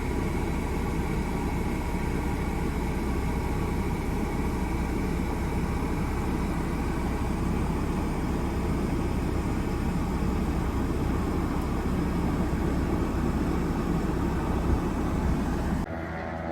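Aircraft engine running with a steady drone and several held tones. Just before the end it cuts abruptly to a different, quieter sound.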